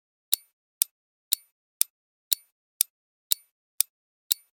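Clock ticking sound effect, about two sharp ticks a second, marking the countdown while the quiz question waits for its answer.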